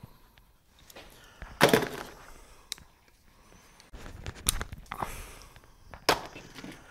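A few sharp knocks and a clatter from objects being handled and set down: the loudest about a second and a half in, more around five seconds, and one more near the end.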